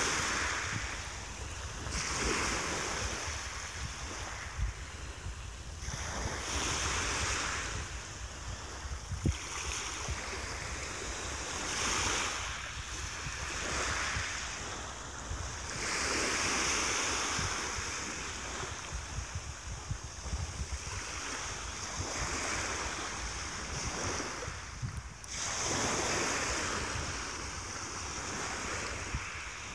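Small waves breaking and washing up a pebble-and-sand beach, a surge of hiss every few seconds as each one comes in and draws back. A steady low rumble of wind on the microphone runs beneath.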